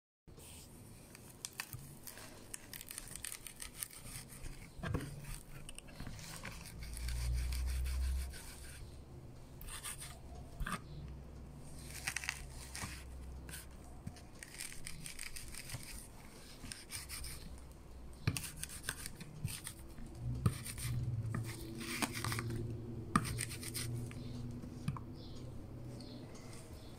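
A curved rocking mincer blade chopping garlic cloves on a wooden cutting board: irregular taps of the blade on the board mixed with scraping and soft crunching. A low hum swells briefly about seven seconds in.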